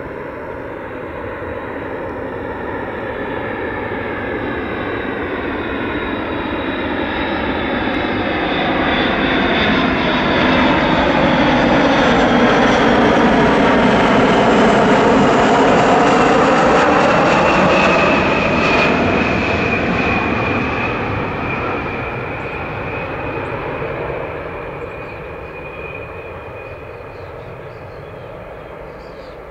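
Boeing KC-135R Stratotanker's four CFM F108 turbofan engines as the tanker flies past. The jet noise builds, is loudest about halfway through, then fades, with a steady high whine as it moves away.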